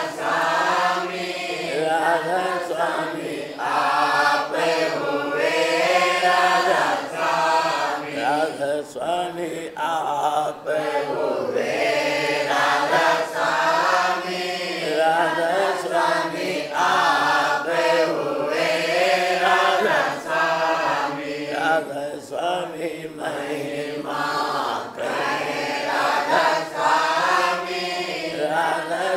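Devotional chanting of a Radhasoami shabad: sung voices holding and gliding between notes in a slow chant.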